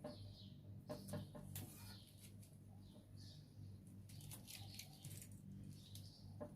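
Faint bird chirps repeating about once a second over a low steady hum, with a few light clicks.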